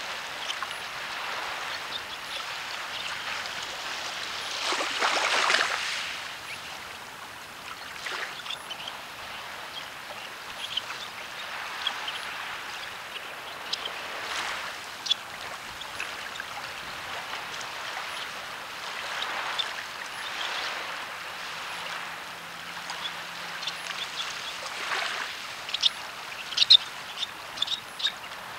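Small waves washing on a pebble beach, a steady hiss that swells several times, loudest about five seconds in. Near the end come a run of sharp clicks.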